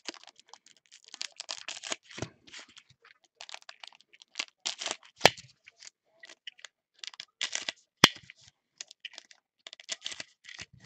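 Gloved hands tearing open and crinkling the wrappers of 2018 Panini Unparalleled Football card packs: quick, irregular crackles, with two sharp snaps about five and eight seconds in.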